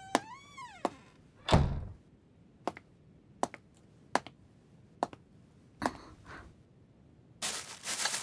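A door creaks and shuts with a thunk about a second and a half in, followed by soft footsteps, then a plastic shopping bag of bottles rustles loudly near the end.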